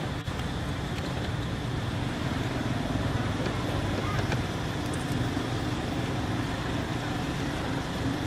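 Steady outdoor background noise: a continuous low rumble with hiss over it.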